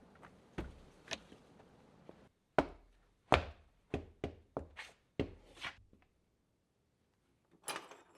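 A run of sharp hammer blows, about eight of them in quick, uneven succession, with a last cluster near the end. The sound drops abruptly to silence between groups of blows.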